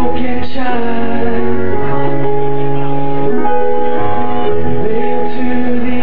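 A band playing an acoustic arrangement live: held chords over a low bass line that changes every second or two.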